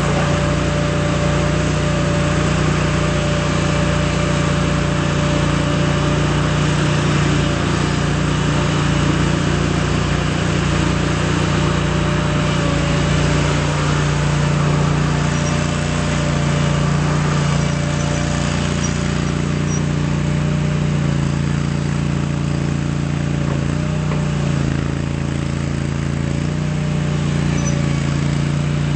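Vermeer S400TX mini skid steer's engine running steadily. Its note dips and shifts a few times in the second half as the load changes.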